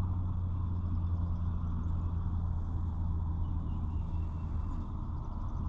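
A steady low engine hum, even in level throughout, with no speech over it.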